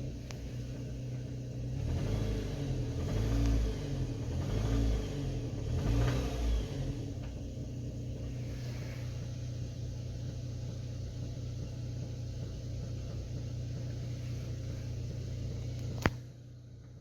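Opel Z22SE 2.2-litre four-cylinder petrol engine revved up several times, then settling to a steady idle, with a knock in it whose cause the owner cannot identify. A sharp click near the end, after which the sound drops away.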